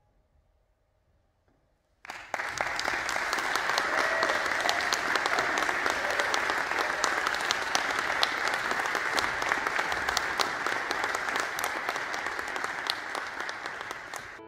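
Concert audience applauding. After about two seconds of near silence the clapping breaks out all at once and carries on steadily as a dense mass of sharp claps, tapering off near the end.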